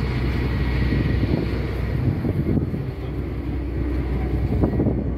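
Engine of a passenger excursion boat running steadily under way: a constant low drone under a steady rushing noise.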